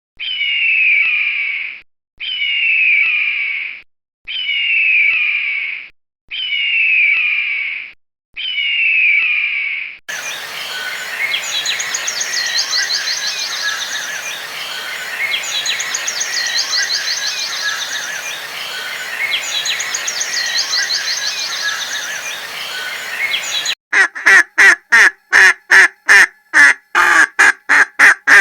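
A high call that glides downward is repeated five times, about every two seconds. Next comes a stretch of wild birds singing, with high trills. Near the end, ducks quack fast and loud.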